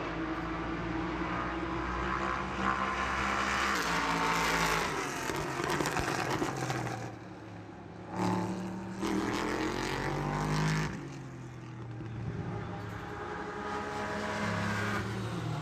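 Race car engines at high revs, their pitch rising and falling as cars go by, with a short lull about seven seconds in.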